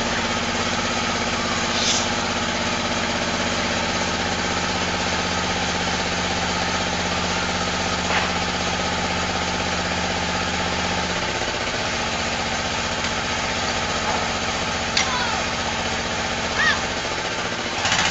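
An engine running steadily with a low, even hum; the lowest part of the hum drops away about eleven seconds in. A few short high squeaks sound near the end.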